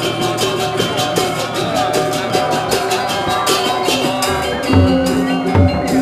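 Balinese gamelan playing: fast, dense strikes on ringing metal keys and gongs, with low drum beats coming in about four and a half seconds in.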